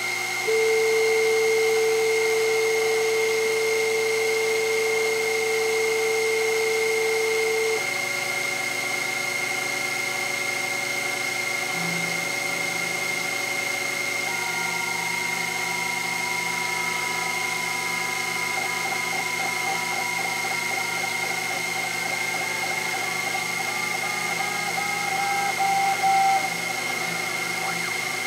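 Sherline CNC mill machining Delrin on its rotary fourth axis: a steady high whine from the spindle, with motor tones from the axis drives that hold, switch pitch about 8 and 14 seconds in, and later rise slowly and step as the table and spindle move together.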